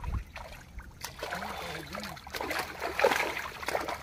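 Water splashing and sloshing as fish thrash in a drag net hauled into the shallows of a pond. Quick, irregular splashes thicken from about a second in.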